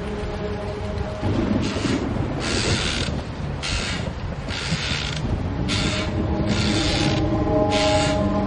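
A low rumbling drone with steady held tones, overlaid by a rasping, creaking stroke that repeats about once a second.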